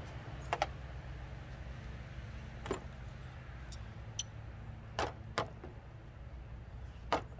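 Light metallic clicks and clinks, about seven scattered through, from a spark plug and hand tools being handled, over a steady low hum.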